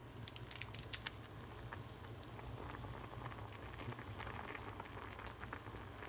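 Water at a rolling boil in a stainless pot of instant noodles, bubbling and popping steadily. A few sharp crinkles from the plastic soup packet come in the first second.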